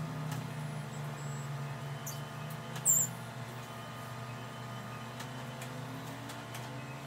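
Steady low hum of endoscopy equipment during a gastroscopy, with one brief, sharp, high squeak about three seconds in.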